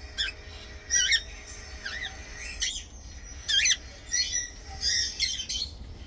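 Small pet parrots calling: a string of about eight short, shrill, warbling squawks spread over a few seconds.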